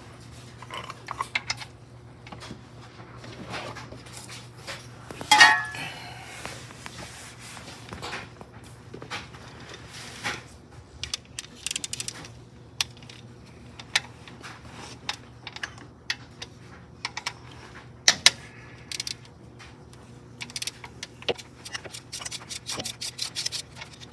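Hand tools working on bolts under a car: a socket ratchet clicking and metal tools clinking, with a quick run of ratchet clicks near the end and one louder clatter about five seconds in. A steady low hum runs underneath.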